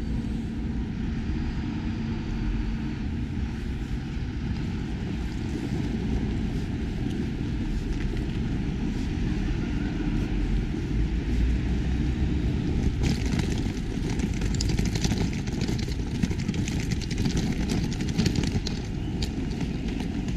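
Outdoor city-street ambience: a steady low rumble of distant traffic and wind. From about two-thirds of the way through, footsteps and short clicks on the stone paving become noticeable over it.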